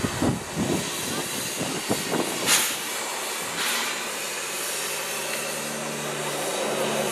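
Steam locomotive dressed as Thomas the Tank Engine hissing steam, with two louder bursts of hiss about two and a half and three and a half seconds in. A steady low hum comes in during the second half.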